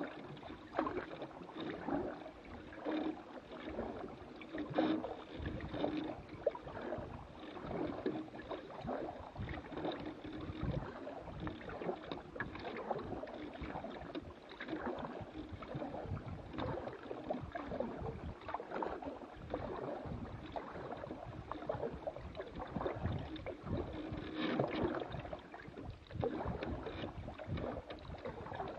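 Water splashing and lapping against a canoe's hull as it moves, with frequent small irregular knocks and taps.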